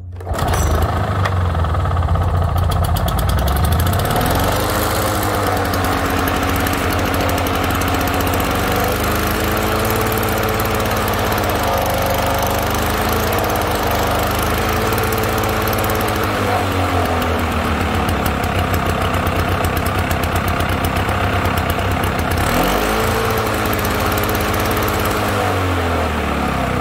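Vintage Toro 530 two-stroke lawnmower engine starting on the first pull with the choke on, then running; its engine speed rises and falls several times as it settles.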